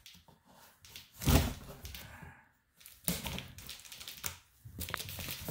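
A knife blade slitting packing tape on a cardboard box: rough scraping and cutting with small ticks, after a single thump on the box about a second in.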